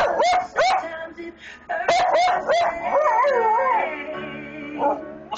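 Mini Aussiedoodle howling along to music: a string of short yips and howls that rise and fall in pitch, then a longer wavering howl about three seconds in. Recorded music plays underneath throughout.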